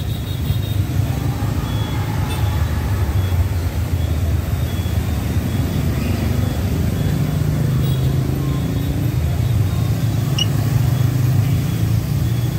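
Street traffic of motor scooters riding past, a steady rumble of small engines and tyres.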